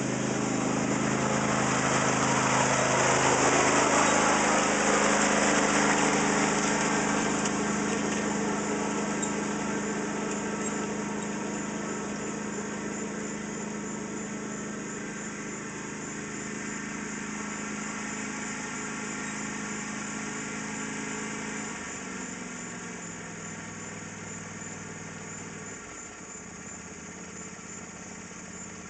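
Craftsman YT4000 lawn tractor engine running as the tractor pulls a loaded garden cart away. It is loudest in the first few seconds and fades steadily as the tractor moves off. The engine note drops in the last several seconds as the tractor slows, with another change a few seconds later.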